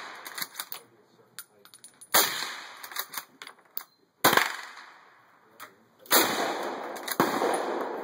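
Rifle gunfire at an outdoor shooting range: three loud shots about two seconds apart, then another about a second later, each with a short echoing tail, with lighter clicks and knocks between them.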